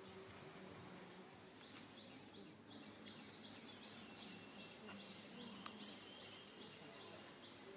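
Faint outdoor ambience with a bird calling in short, high chirps repeated about twice a second, and one sharp click about two-thirds of the way through.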